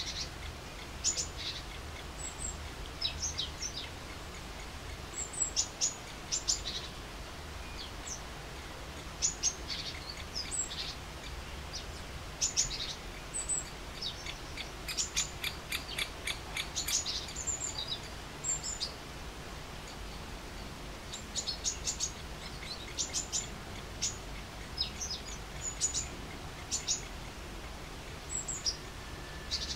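Birds chirping with short, high-pitched notes in scattered quick runs, busiest about halfway through, over a steady low background rumble.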